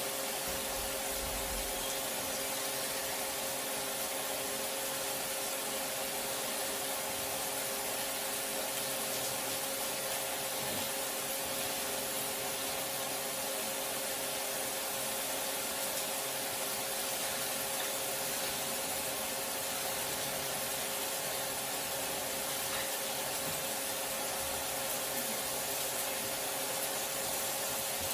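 Kitchen range hood extractor fan running steadily: an even rushing noise with a constant hum.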